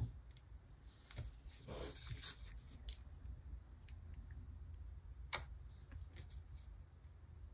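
Faint clicks and paper rustles of a small piece of sticker sheet being cut and handled, with one sharper click about five seconds in.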